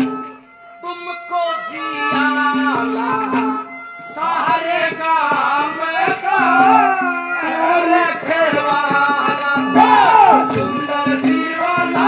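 A Haryanvi ragni sung live by a male singer, his voice bending and swooping loudest near the end, over hand-drum strokes and steady held instrumental notes.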